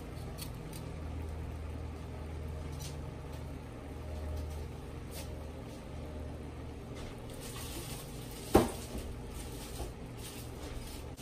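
A low steady hum, with one sharp knock about eight and a half seconds in.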